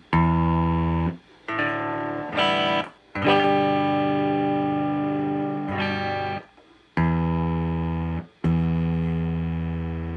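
Electric guitar notes and chords, mostly on the low strings, played one after another through a Sears Silvertone Twin Twelve 12-inch speaker; each rings out for about a second or two before the next. The speaker adds a distortion that sounds terrible: it is the worse of the cabinet's two speakers and is acting up.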